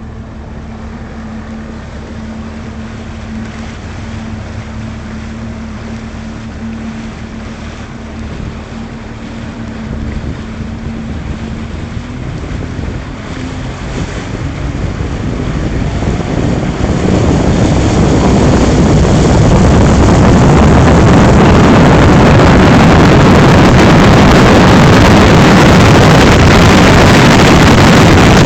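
Boat motor running steadily with its lower unit freshly rebuilt, then about 16 seconds in the boat speeds up and the sound swells into a loud, steady rush of engine, water and wind on the microphone.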